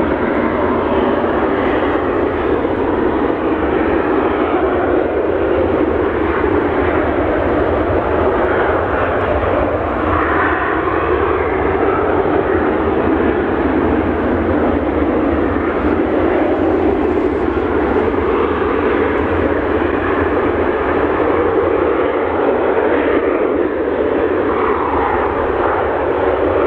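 Airbus A320 airliner's jet engines: a loud, steady, unbroken jet noise as the aircraft lands, with a low rumble beneath it.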